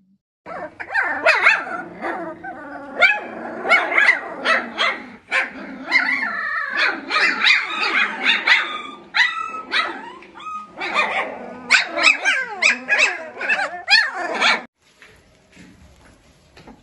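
A litter of Doberman puppies crying and barking at once, many overlapping high-pitched calls, cutting off near the end.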